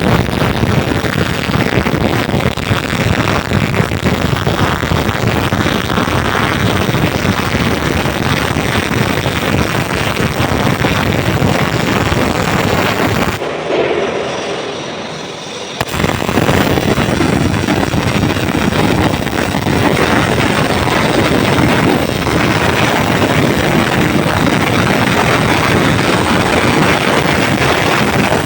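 Electric arc welding on a container frame: a loud, continuous dense crackle from the welding arc, with a short break about halfway through before it starts again.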